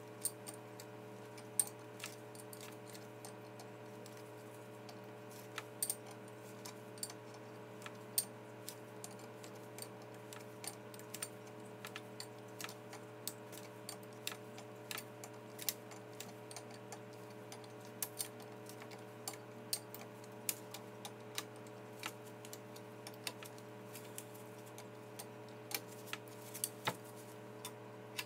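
Irregular small metal clicks and light taps as starter parts and a small wrench are handled and fitted together, with a steady low hum underneath.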